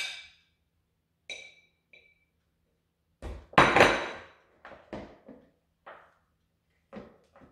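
A metal fork and ceramic plate clinking against plastic bowls while grated potato is drained, with short ringing clinks early on, a loud clatter about three and a half seconds in, then several lighter knocks.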